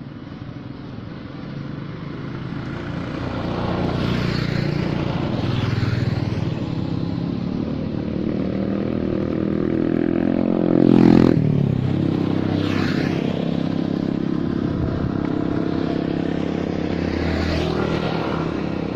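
Several motorbikes passing on the road one after another, their engines rising and falling as each goes by, with the loudest pass about halfway through.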